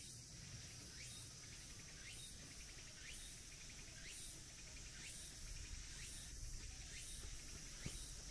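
Outdoor insect ambience: a steady high drone with a short rising chirp repeating about once a second.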